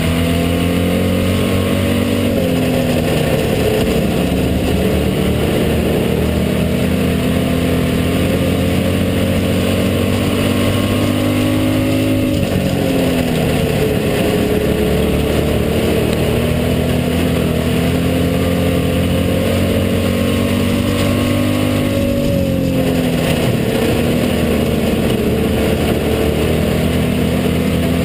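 Hobby stock race car's engine at racing speed, heard from inside the cockpit. It runs steadily, and its pitch drops three times, about ten seconds apart, then climbs back, as the throttle is eased for the turns and reapplied.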